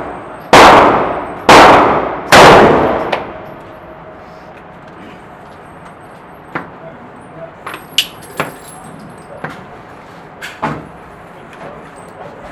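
AR-15 rifle firing three shots about a second apart, each echoing off the indoor range's walls, followed by scattered metallic clicks and clanks as the rifle is handled at the bench.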